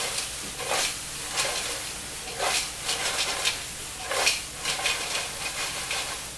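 Velvet swimming crabs, carrots and celery frying in olive oil in a large aluminium sauté pan, sizzling steadily, with several louder surges of sizzle as the pan is tossed and the pieces land back in the hot fat.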